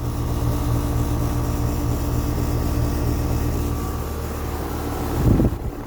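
Carrier Comfort outdoor air-conditioner condenser unit running, with a steady compressor hum and fan. A short low rumble comes near the end, and then it sounds quieter.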